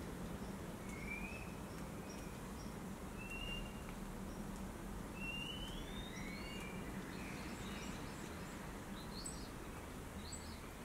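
Outdoor ambience: a steady low background hiss with scattered short bird chirps, a few rising in pitch, and a quick cluster of higher chirps near the end.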